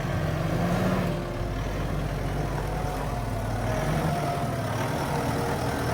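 Vehicle engine running at low revs, its pitch shifting a little, as the vehicle is eased over a steep, rough dirt track.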